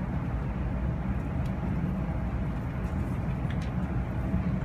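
Inside the cabin of a Kyushu Shinkansen train pulling out of the station: a steady low rumble of running noise with a faint steady tone above it.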